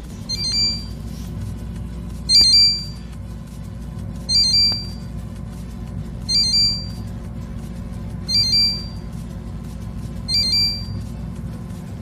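Consul refrigerator's open-door alarm beeping: a quick group of high electronic beeps repeats about every two seconds, over a steady low hum. It is sounding because a door has been left open.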